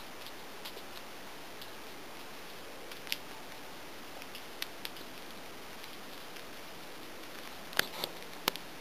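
Still, quiet ambience of a deep-snow yard: a steady faint hiss, broken by a few short, sharp clicks, the loudest near the end.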